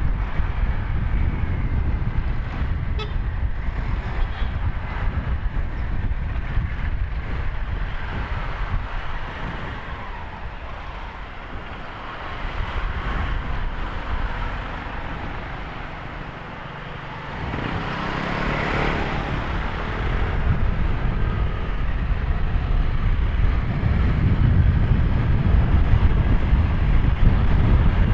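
Riding noise from a Honda Click 150i scooter under way: a steady low rumble of wind on the microphone and road noise. It eases for a moment past the middle, then swells briefly about two-thirds of the way through.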